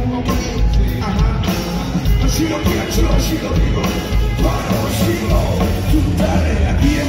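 Live funk-rock band playing loudly on stage, with drums and electric guitars over a steady beat.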